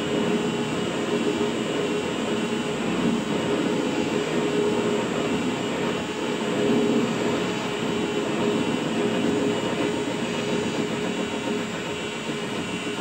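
WM210V benchtop metal lathe running steadily with a cutting tool taking a pass: a continuous machine hum with a steady whine.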